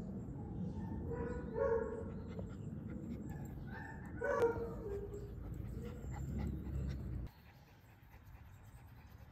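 Small black-and-tan dog giving two short, high yips, about a second and a half in and again about four seconds in, the second trailing off lower. A steady low rumble lies underneath and cuts off abruptly about seven seconds in.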